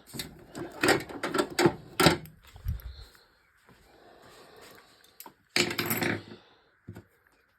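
Screwdrivers being picked up and handled, their plastic handles clicking and knocking against each other and a hard surface, with a dull thump about three seconds in and another cluster of knocks around six seconds in.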